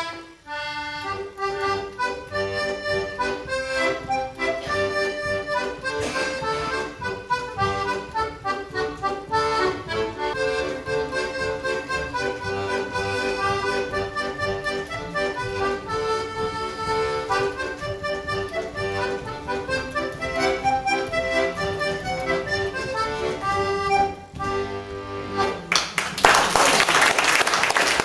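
Button melodeon playing a traditional tune, melody notes over pushed-and-pulled chords. About 26 seconds in, the tune ends and the audience applauds.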